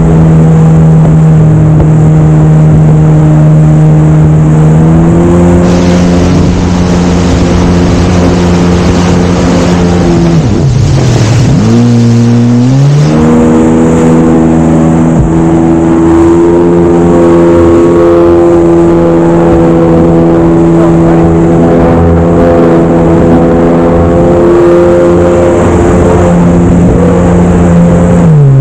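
Jet ski engine running hard at a steady pitch. About ten seconds in the throttle is eased for a turn: the pitch dives, then climbs back and holds, and it drops again at the very end. A rushing hiss of water spray rides over the engine through the middle stretch.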